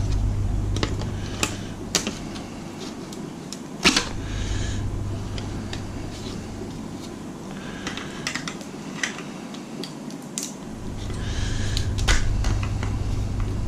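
Scattered sharp clicks and small cracks as the plastic housing of a circuit board's game-cartridge slot connector is pried up, leaving the pins behind. A steady low hum drops out about four seconds in and returns some seven seconds later.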